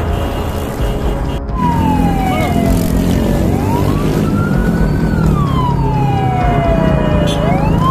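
Emergency vehicle siren wailing, its pitch sliding slowly up and down about once every four seconds, over background music. The siren comes in after a sudden cut about a second and a half in.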